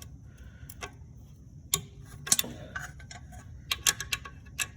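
Irregular sharp metallic clicks and clinks of a 10 mm wrench working a nut on an alternator, with several clicks in quick succession near the end.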